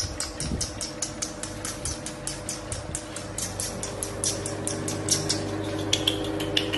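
A puppy's claws clicking quickly on a tile floor, about five or six light clicks a second, over a steady low hum.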